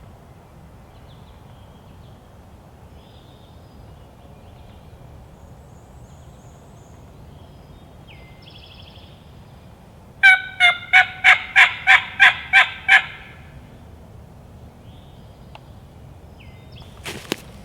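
Turkey call worked by hand: a loud run of about nine evenly spaced yelps, roughly three a second, starting about ten seconds in, a hen-turkey calling sequence used to make a gobbler answer. Faint songbirds call in the woods around it.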